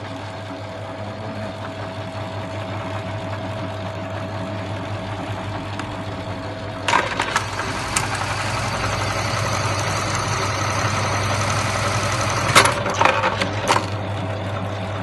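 Dürkopp Adler 558 buttonhole sewing machine with its motor humming steadily. About seven seconds in it clicks into a stitching cycle with a fast mechanical clatter for some six seconds, ending in a few sharp knocks, then goes back to the plain hum.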